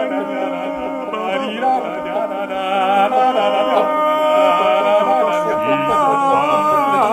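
Male voices singing together in harmony in a mock-operatic style, one man multitracked into four parts, holding long sustained notes with a swoop down in pitch near the end.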